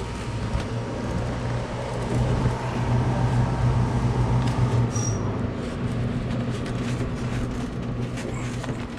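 Steady low machinery hum, with faint clicks from plastic water tubing being handled and pushed onto a fitting.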